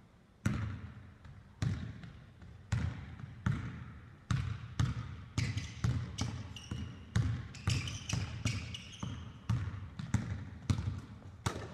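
A basketball is dribbled on a hardwood gym floor, each bounce a sharp thud that rings in the large hall. The bounces come about once a second at first and quicken to about two a second. A few short, high squeaks come around the middle.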